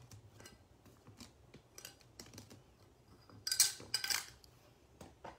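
Trading cards and plastic card holders being handled and gathered into a stack: scattered light clicks and taps, with two louder, brief brushing rustles of cards a little past the middle.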